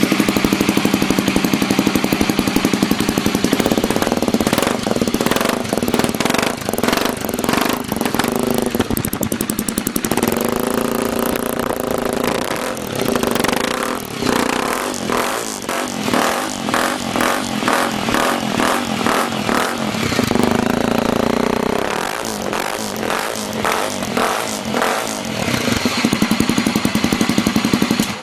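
Honda XRE 300's single-cylinder engine running through a Coyote SS oval aftermarket exhaust with its catalytic converter mid-pipe, idling and revved repeatedly with blips of the throttle.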